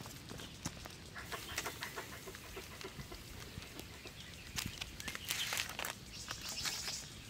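Charcoal crackling under a steel mesh grill grate with scattered sharp pops, and a raw beef steak sizzling on it. Near the end comes a rustle of aluminium foil as tongs move a foil packet.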